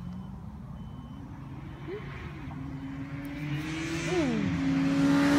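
A road vehicle's engine accelerating, its pitch climbing and then dropping at two gear changes. It grows steadily louder as it approaches.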